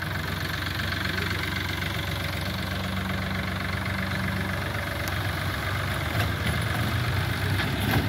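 Tractor diesel engine running steadily while it powers the hydraulic tipper raising the loaded trailer, the engine note shifting slightly about six seconds in.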